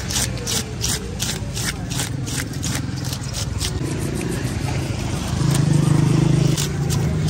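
Knife scraping and cutting a large fish on the stall counter, in short repeated strokes about three a second. An engine hums in the background and grows louder about five and a half seconds in.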